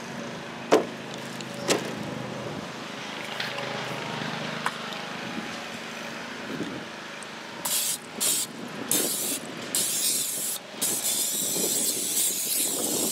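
Aerosol can of vegetable oil cooking spray hissing into a cast iron Dutch oven: four short bursts starting about halfway through, then one longer continuous spray near the end. Two sharp knocks in the first two seconds.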